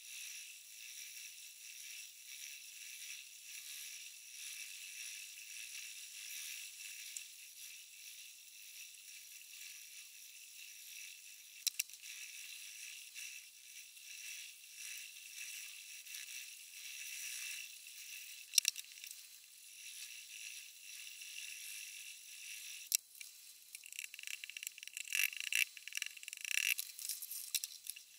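Kitchen knife blade stroked along a 3000-grit diamond sharpening stone: a faint, steady scraping hiss that swells and fades with the passes. A few sharp clicks, coming thicker in the last few seconds.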